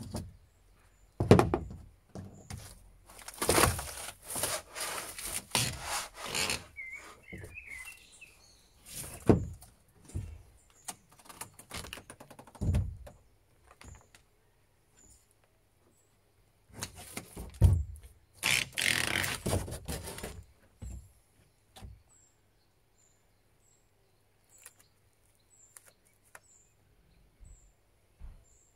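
Plywood floor panels of a fiberglass speedboat being pried up and pulled out: irregular knocks, heavy thuds, creaking and scraping of wood for about twenty seconds. After that it goes mostly quiet, with small birds chirping faintly.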